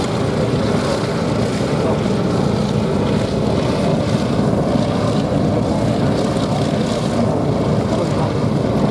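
Several Supermarine Spitfires' V12 piston engines, Rolls-Royce Merlins and Griffons, running together on the ground before take-off: a steady, heavy engine drone.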